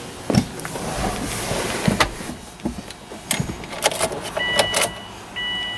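Clicks and knocks of someone settling into the driver's seat of a 2008 Subaru Forester and handling the ignition key. About three-quarters of the way in, the car's electronic warning chime starts beeping on and off.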